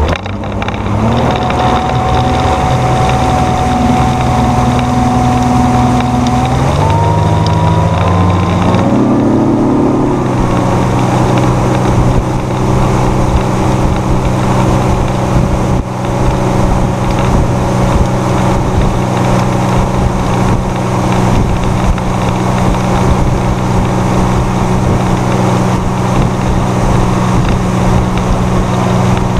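Outboard motor of a 2019 Tracker Targa V18 Combo fishing boat accelerating. Its pitch climbs in steps between about six and ten seconds in as the boat gets up to speed, then holds steady at cruising speed.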